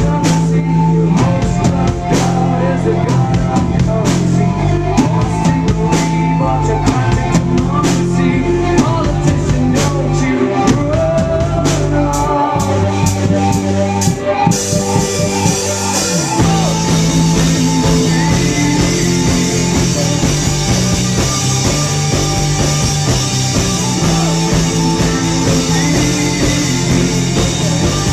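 Live rock band playing, with acoustic and electric guitars, bass and drums, recorded loud on a handheld camcorder's microphone. About halfway through the band drops into a stop-start stretch of short bass stabs, then comes back in fuller with cymbals ringing.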